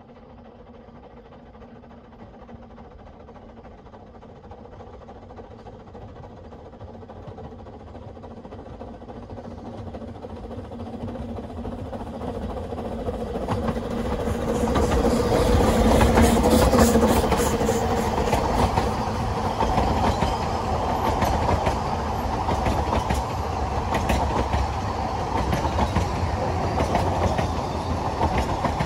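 Ffestiniog Railway's narrow-gauge double Fairlie steam locomotive Merddin Emrys running past with a passenger train. It grows steadily louder as it approaches and is loudest about sixteen seconds in as the engine goes by. The coaches follow, rolling past with a clickety-clack of wheels over the rail joints.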